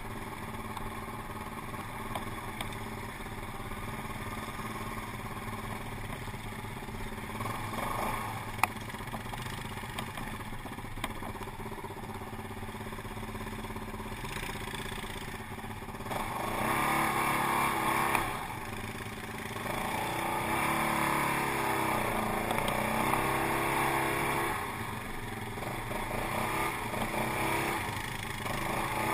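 Quad bike (ATV) engine running close under the rider on a dirt trail. It gets louder from about halfway and revs up and down several times, with a sharp knock about nine seconds in.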